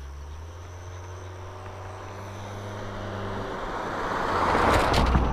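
An SUV driving along a paved road and passing close by. The low engine hum and tyre noise build steadily and are loudest near the end as it goes by.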